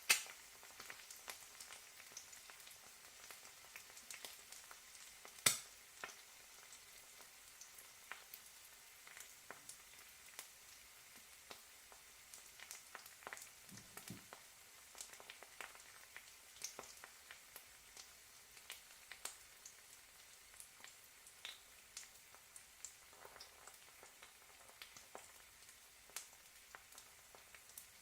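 An egg frying in a pan: a steady faint sizzle with frequent sharp crackles and pops of spitting fat, one louder pop about five and a half seconds in.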